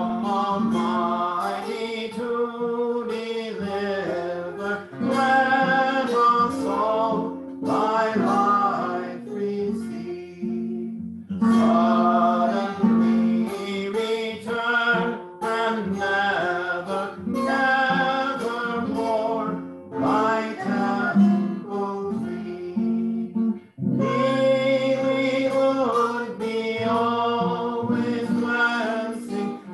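A song sung to strummed acoustic guitar, in phrases with two short breaks between them.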